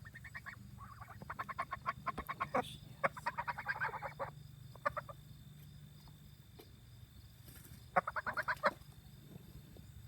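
Domestic waterfowl calling in quick runs of short, pitched notes: a long run over the first four seconds, then a shorter burst near the end.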